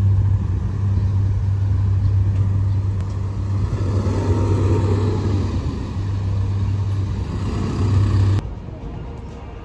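City road traffic: a steady low hum and road noise, with a vehicle passing about four to five seconds in. The sound drops quieter about eight seconds in.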